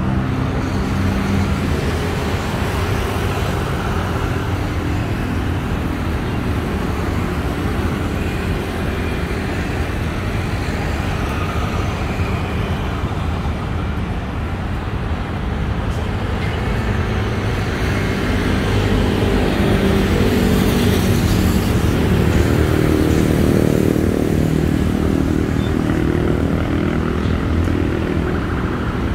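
Steady city road traffic, with engines running past, growing louder for a few seconds about two-thirds of the way through.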